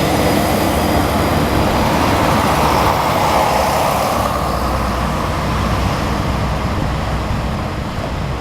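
A train running with a steady low rumble and a rushing noise that swells a few seconds in and eases off near the end.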